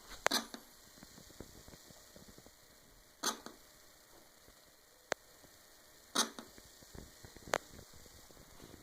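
LG 42LE4900 LED TV's speakers giving out sharp clap-like pops at uneven intervals, about five of them, instead of any programme sound. The owner suspects either a faulty main board or blown speakers.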